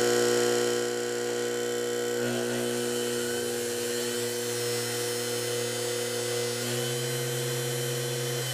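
Permanent-magnet DC treadmill motor on a triac speed controller, buzzing with a steady electrical hum. About two seconds in it kicks on and turns slowly at a low dial setting, adding a steady rushing whir over the hum.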